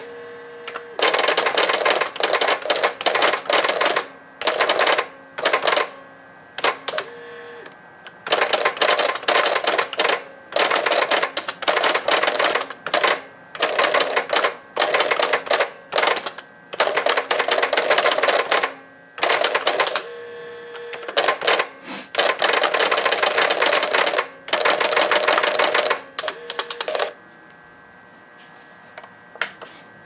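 Brother BP-30 pen plotter typewriter printing: its pen mechanism buzzes and rattles in runs of a second or two as it draws characters, with short pauses in between. It stops near the end, leaving only a faint steady hum.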